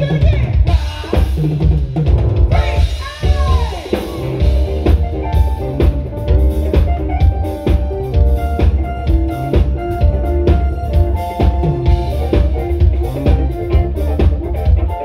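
Live band playing a steady groove: a drum kit's kick and snare keep the beat under sustained chords, with a sliding note about three seconds in.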